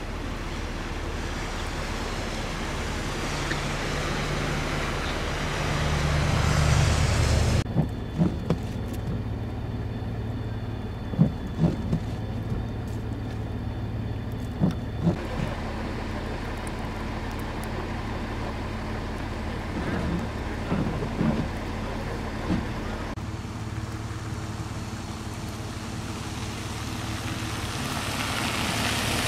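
Vehicle and road noise in snowy conditions: engine hum and tyre hiss, with the sound changing abruptly twice as the footage cuts. Several sharp knocks fall in the middle stretch.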